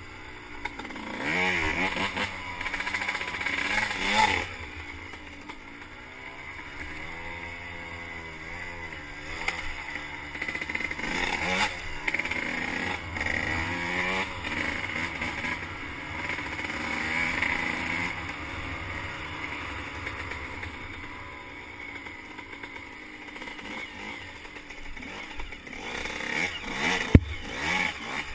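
A 2006 Suzuki RM125's 125 cc two-stroke single running on a trail ride, its pitch rising and falling over and over as the throttle opens and closes. A single sharp knock comes about a second before the end.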